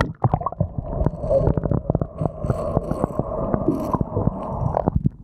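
Muffled underwater sound picked up by a submerged action camera: a steady dull drone with many irregular clicks and knocks as water moves against the camera housing.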